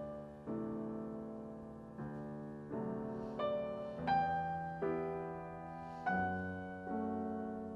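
Solo piano music: slow chords and notes, each struck and left to fade before the next.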